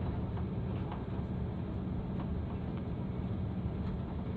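Jet airliner cabin noise while the plane rolls along the runway: a steady low rumble from the engines and wheels, with a few faint ticks and rattles.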